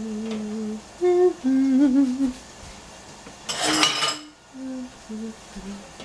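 A woman humming a slow tune in held notes, phrase after phrase. A brief clatter about three and a half seconds in.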